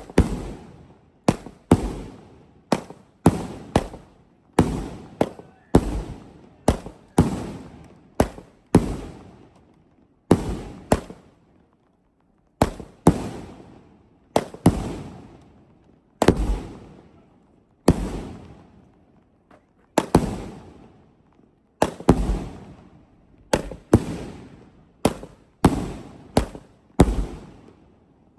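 Aerial fireworks firing in a long string of sharp booms, each followed by a fading echo, about one or two a second, with a short pause about eleven seconds in.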